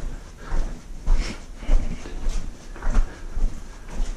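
Footsteps walking along a mine tunnel floor, a little under two steps a second, with low thuds under each step.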